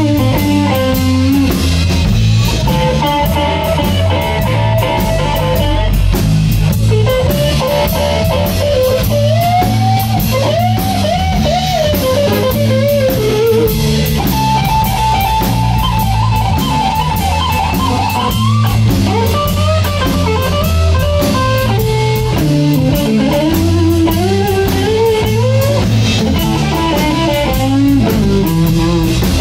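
Live electric blues band playing an instrumental passage: electric guitar, bass guitar and drum kit, with a lead line that bends up and down in pitch over the steady beat.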